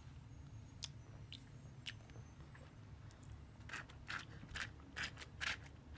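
Toddler sucking on a plastic sippy cup, a run of short wet sucking sounds about two a second starting a little past halfway, drawing air from a cup that has run out of water. A few faint clicks come before it.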